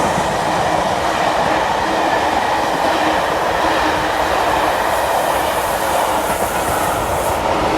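A passenger train rolling past at close range: a steady, loud rumble of wheels on the rails with some clickety-clack, starting to fade right at the end.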